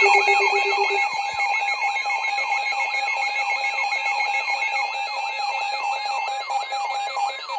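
Emergency alert receivers sounding their alert tones together: steady alarm tones layered with a rapidly repeating falling siren-like sweep and a wavering high tone. A lower tone drops out about a second in, and the steady tones cut off near the end, just before a spoken warning begins.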